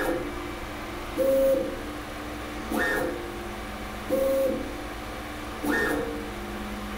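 Kingroon KLP1 CoreXY 3D printer's stepper motors whining as the print head runs back and forth laying down pressure-advance calibration lines. Each pass, about every second and a half, brings a short whine that rises and falls in pitch, over a steady hum.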